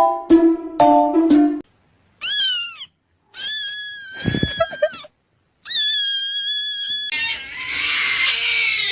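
A quick run of bright musical notes, then a cat meowing three times: a short falling meow, then two longer, level-pitched meows. About seven seconds in comes a longer, harsher cry that falls in pitch at the end.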